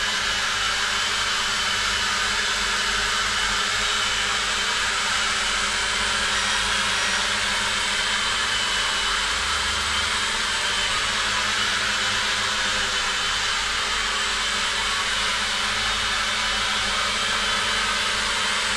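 E88 Pro mini quadcopter's four small motors and propellers whirring steadily while it hovers and drifts a little above the floor, with a high whine over an even rushing noise.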